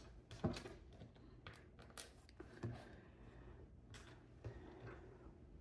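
Faint, scattered clicks and taps of plastic Lego pieces being handled and fitted together, about half a dozen separate ticks.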